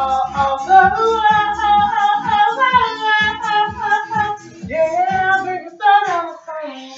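A voice singing long, gliding melodic lines over a backing track with a steady beat.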